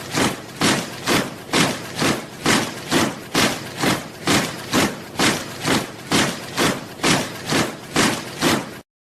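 A troop of soldiers marching in step, boots striking the ground together about twice a second in a steady crunching tramp. The marching cuts off abruptly near the end.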